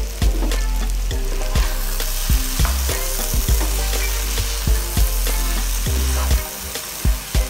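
Breadfruit pieces sizzling in a frying pan while a spatula stirs through them, with frequent short knocks and scrapes of the spatula against the pan.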